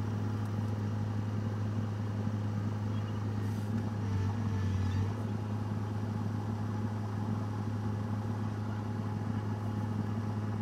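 An engine running steadily with an even low hum, dipping briefly about four seconds in.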